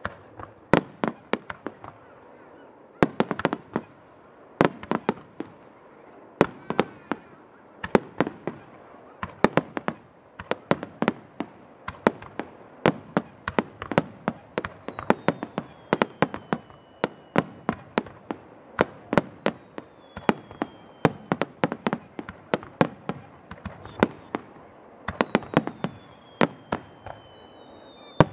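Starmine fireworks barrage of peony, chrysanthemum and kamuro-giku shells: rapid, irregular clusters of sharp launch and burst reports, several a second. From about halfway through, falling whistles sound above the reports.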